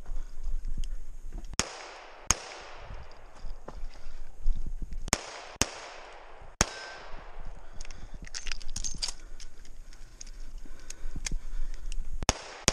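Smith & Wesson 686 revolver shots fired with minor-power-factor loads: five shots at an uneven pace, each with a short ringing tail. A cluster of light clicks follows about eight seconds in, and another shot comes near the end.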